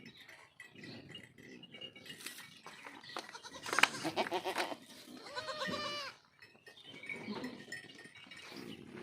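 Goats bleating: a loud, rough stretch about four seconds in, then one clear drawn-out bleat a little after five seconds.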